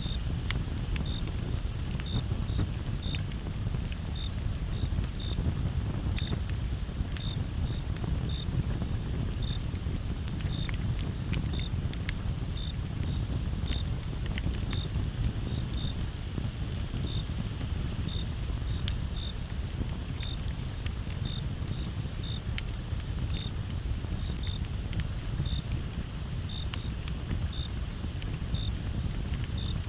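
Campfire crackling, with frequent sharp pops over a low steady rumble, and crickets chirping: a constant high trill with separate short chirps repeating about twice a second.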